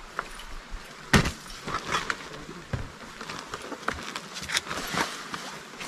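Irregular knocks and clatter, the loudest about a second in, from camping gear being carried and set down.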